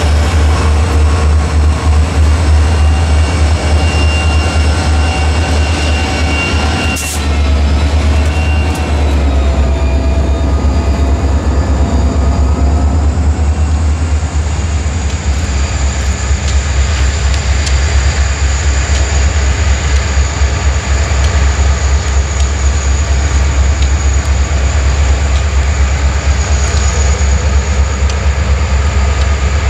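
Reading & Northern EMD diesel locomotives running past at close range. After a cut about seven seconds in, another set of diesel locomotives approaches with a steady, heavy low engine sound.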